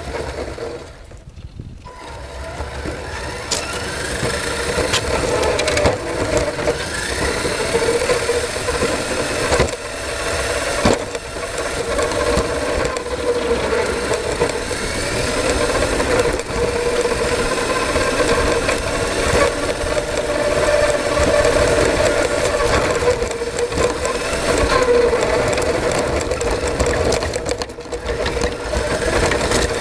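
Radio-controlled model's motor running continuously, its whine wavering up and down in pitch with throttle, along with rattling, picked up by a camera mounted on the model. The sound dips briefly about a second in, then picks back up.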